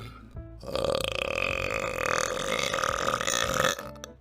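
One long burp of about three seconds, starting about half a second in, over faint background music.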